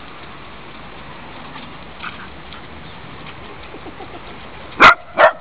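Small dog barking twice in quick succession near the end, sharp play barks while sparring with another small dog.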